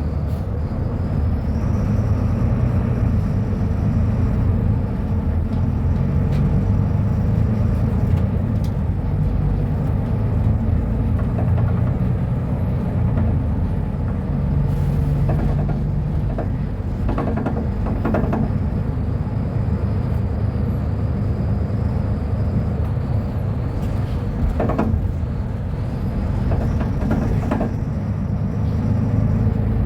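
Diesel engine of a Mercedes-Benz O500U city bus running steadily, with a few brief knocks about midway and again later.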